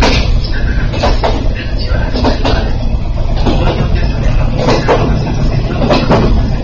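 Local train running, heard from inside the passenger car: a steady low rumble of wheels and running gear, with irregular short knocks and clanks.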